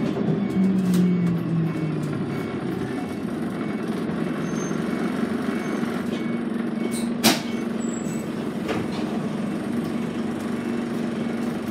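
Scania N113CRB city bus heard from inside the cabin: its rear-mounted engine drones steadily while driving, the pitch falling over the first couple of seconds, with one sharp knock about seven seconds in.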